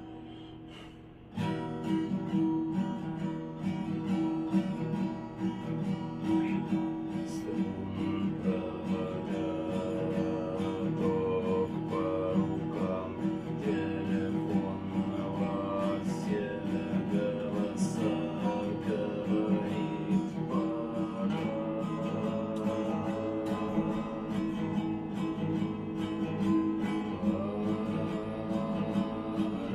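Acoustic guitar strumming chords steadily from about a second and a half in, with frequent sharp percussive strokes.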